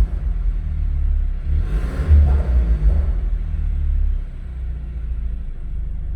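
Exhaust of a BMW 428i's 2.0-litre turbocharged four-cylinder (N26), tuned with a pop-and-bang map, giving a deep rumble. A brief rev surge comes about two seconds in, then the engine settles to a lower, steady idle rumble.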